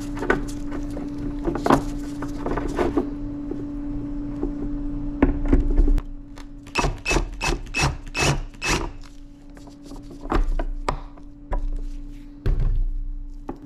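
Cordless drill driving wood screws through the end links of a steel chain into the workbench, with knocks and clinks of the chain being handled. A dense run of sharp clicks and knocks comes in the middle.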